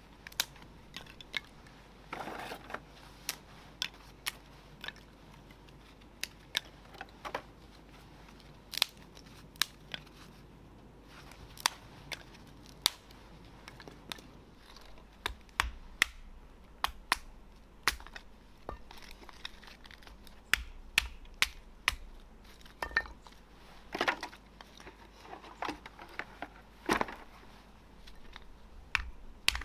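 Dry twigs and fallen leaf litter snapping and crunching: irregular sharp cracks, with a few longer crunches about two seconds in and again near the end.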